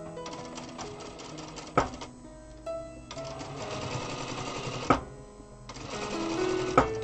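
Zoje ZJ9703AR-D4J/02 industrial lockstitch sewing machine stitching in three short runs of rapid, even clatter. Each run stops with a sharp click. Background music with held notes plays underneath.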